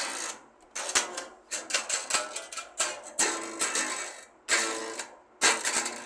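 Plucked string instrument strummed in short, choppy strokes, about one burst every half second to second with brief silences between.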